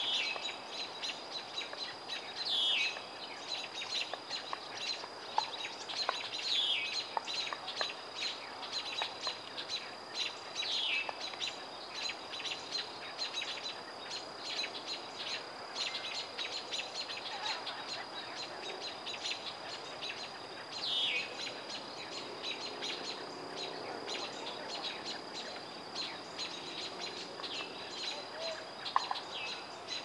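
Red-winged blackbirds and American robins giving mobbing alarm calls at a young great horned owl: a steady stream of short, sharp call notes, with a quick descending call every few seconds. A steady high-pitched tone runs underneath.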